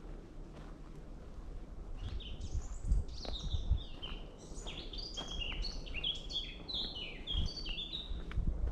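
A songbird sings a long, fast song of short high notes, each sliding downward, starting about two seconds in, with soft footsteps on a woodland path underneath.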